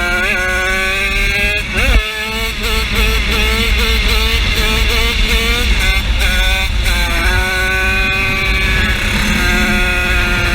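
High-revving 50cc engine running hard under way. Its pitch drops and climbs again quickly at the start and about two seconds in, then holds high with a slight waver. It steps down a little about seven seconds in and runs on steadily.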